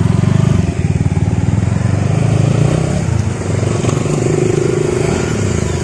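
Motorcycle engines running close by as a group of bikes sets off, a loud, rapid engine beat. About halfway through, a steadier, higher hum joins in.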